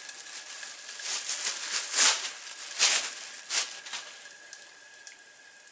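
Thin plastic bag crinkling in several short bursts as a jackfruit is pulled out of it, the loudest about two seconds in, dying away by about four seconds.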